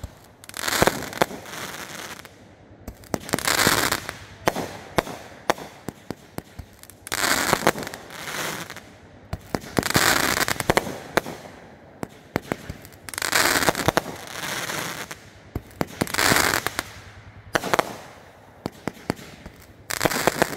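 Aerial fireworks going off close by in quick succession: many sharp bangs and pops, bunched into dense runs about a second long that come every two to four seconds, with single bangs between.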